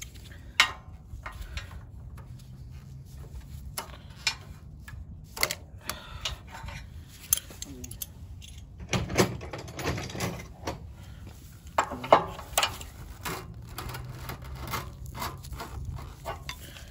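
Steel wrenches clinking and knocking against the nuts and studs of a small engine's carburetor mount: irregular sharp metallic clicks, a few louder knocks among them.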